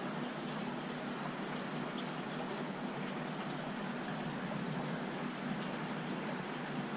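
Steady hiss of running, bubbling water from a large aquarium's water circulation.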